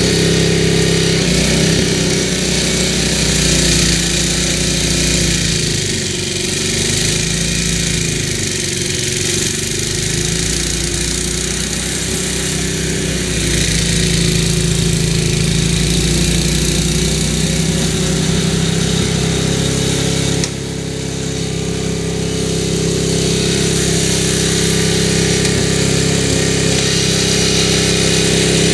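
MTD snowblower's Tecumseh engine running throughout, its pitch sagging and recovering for several seconds as it works through heavy wet snow, then holding steady. The sound drops suddenly for a moment about twenty seconds in.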